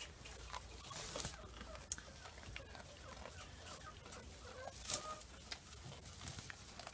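Nigerian dwarf goats pulling at and chewing hay: a soft dry rustling with scattered crackles, one louder about five seconds in. A few faint short calls sound in the background.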